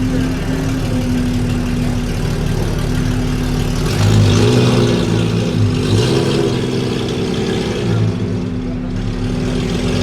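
Porsche 997 Turbo's twin-turbo flat-six through a SOUL Competition exhaust, idling steadily, then rising and falling in pitch in a few light revs from about four seconds in.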